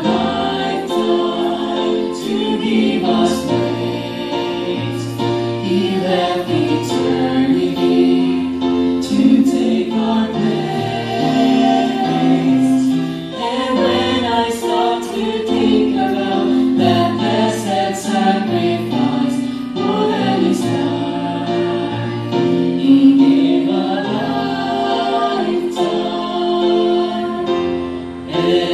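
Small mixed vocal group of men and women singing a gospel hymn in harmony into microphones, with held notes throughout.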